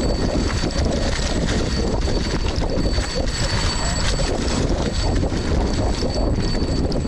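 Mountain bike rattling and clattering over a rough dirt trail at speed, with a constant low rumble of wind on the microphone.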